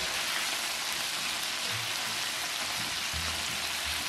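Battered squid pieces deep-frying in hot oil, a steady sizzle, being fried until crisp and golden.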